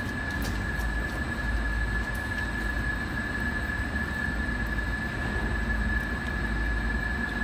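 Steady machine hum with a low rumble and a constant high-pitched whine.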